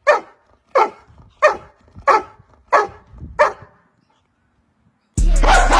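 A dog barking six times at an even pace, about one and a half barks a second, each bark dropping in pitch. Loud music starts near the end.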